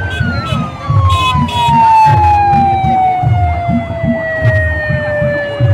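A vehicle siren sweeps sharply up and then winds slowly down in pitch for several seconds, over a steady low thumping beat.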